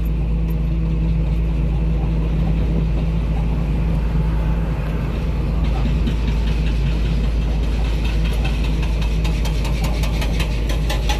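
Heavy diesel engine idling with a steady low rumble. About eight seconds in, a rapid metallic clicking starts on top of it.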